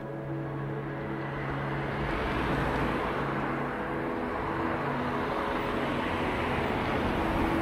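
Road traffic: cars passing, a steady rush of tyre and engine noise that swells about two seconds in, with faint music underneath.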